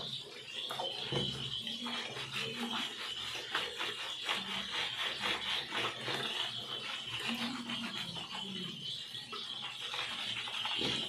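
Hands scrubbing shampoo lather into a wet golden retriever's coat: quick, repeated wet rubbing strokes, about three to four a second.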